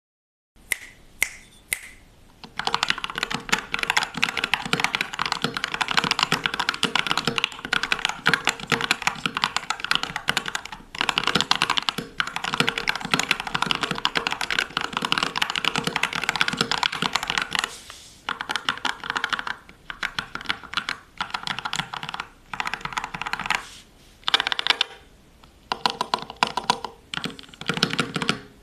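Typing on a Latenpow Looting60 aluminium-cased keyboard with stock hall-effect magnetic switches. A few single keystrokes come first, then a long run of fast continuous typing, then shorter bursts of typing with brief pauses between them.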